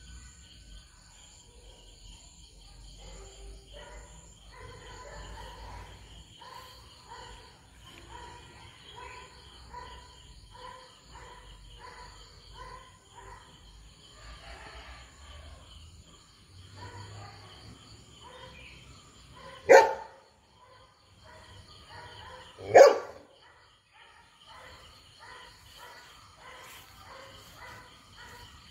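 A dog barking twice, loud and short, about three seconds apart in the second half, over a steady high insect drone.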